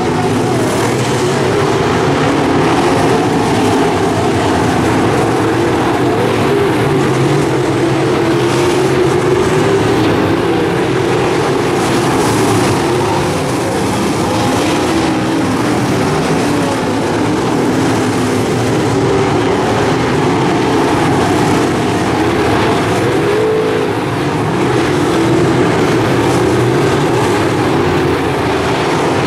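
A pack of dirt-track modified race cars running at racing speed, their V8 engines overlapping in a steady, loud drone. The engine pitches waver up and down as the cars accelerate and lift around the oval.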